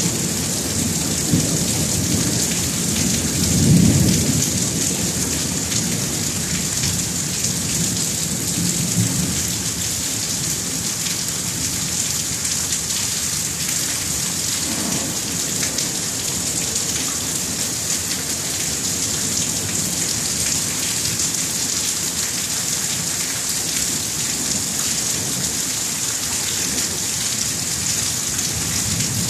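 Thunderstorm: steady rain hissing, with low rolling thunder that swells about four seconds in and again more faintly around fifteen seconds.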